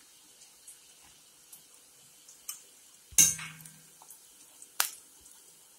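Shallots and dried red chillies frying in oil in a steel kadai: a faint sizzle broken by a few sharp pops, with one louder knock about three seconds in and a sharp click near the end.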